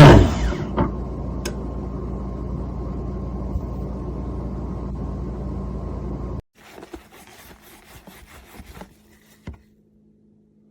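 An electric motor, the coffee maker's built-in burr grinder, spinning down and stopping at the very start, its pitch falling away. A low steady hum follows for several seconds, then a few faint clicks and knocks.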